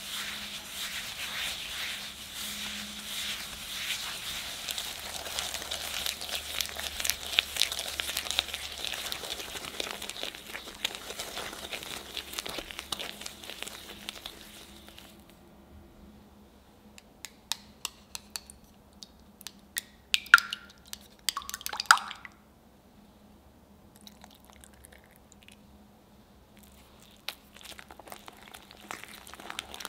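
A wire whisk beats butter and sugar against the side of a bowl, a dense, scratchy scraping. It stops about halfway, leaving a few light clicks and two louder sharp knocks, then a quiet spell. Whisking starts again near the end as eggs are beaten into the creamed butter.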